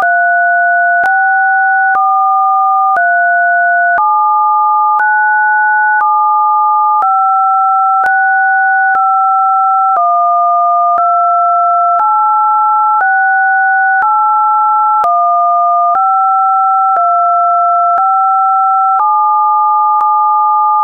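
Two steady electronic sine tones, one lower and one higher, sound together. About once a second one or both jump to a new pitch, with a faint click at each change.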